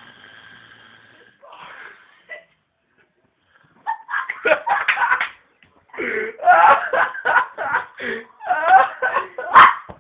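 People laughing hard in loud, choppy bursts, starting about four seconds in after a faint steady tone.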